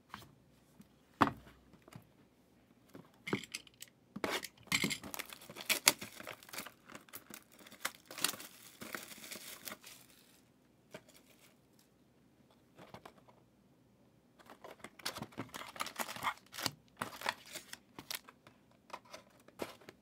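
The plastic wrapping on a box of trading cards being torn off and crinkled, in irregular crackly bursts with pauses between them. There is a sharp click about a second in.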